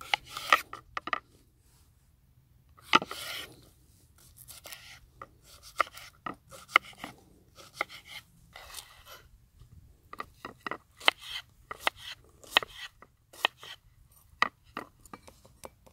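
Opinel No. 10 stainless folding knife cutting a zucchini into chunks on a wooden cutting board: irregular crisp cuts, the blade knocking on the board, often in quick runs.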